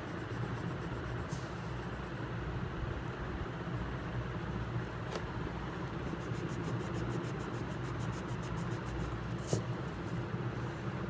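Steady low background hum, with faint pencil scratching on paper and a few faint clicks.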